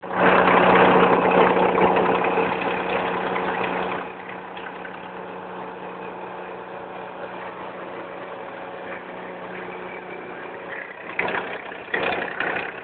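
Tow truck engine running with a steady hum: loud for about the first four seconds, then settling to a lower, even idle. A few short knocks near the end.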